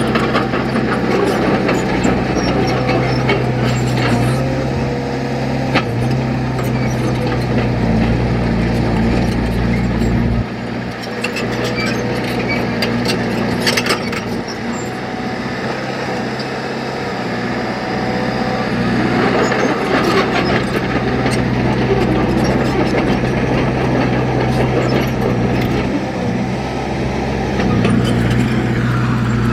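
Diesel engine of heavy earthmoving machinery running steadily under work, with scattered clanks and knocks. The engine note drops about a third of the way in and comes back up near the end.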